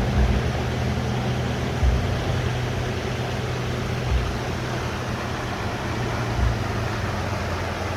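Steady rush of a small mountain creek's flowing water, with a few brief low thumps.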